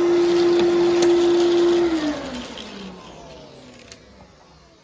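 Fantom Domestic 11-amp vacuum cleaner running with a steady whine, then switched off about two seconds in, its motor winding down with a falling pitch and fading away. The motor sounds very healthy.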